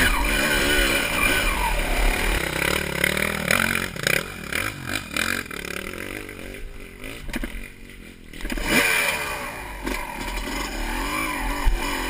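Honda CR250 two-stroke dirt bike engine revving up and down hard under load on a steep rocky climb, with clattering and scraping of loose rock. The engine note falls away for about two seconds past the middle, then revs up again.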